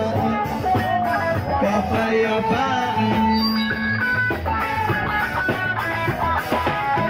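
Live rock band playing loudly: electric guitars over a drum kit.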